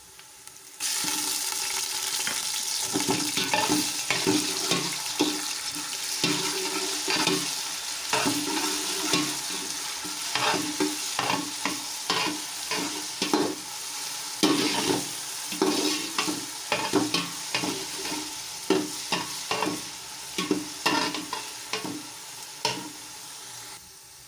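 Sliced onions sizzling in hot oil in a metal pot, nearly golden, with a perforated steel skimmer stirring and scraping against the pot in many short, quick strokes. The sizzle starts about a second in.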